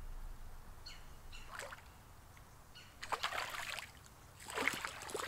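A hooked largemouth-size bass of about two pounds splashing and thrashing at the water's surface as it is reeled in, in two bursts, about three seconds in and again near the end.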